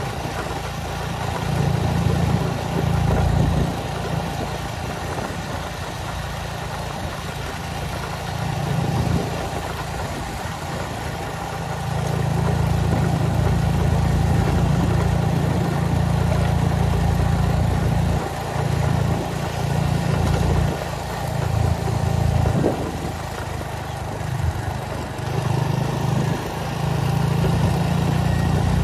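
A vehicle engine running steadily, with a heavy low rumble that swells and drops repeatedly.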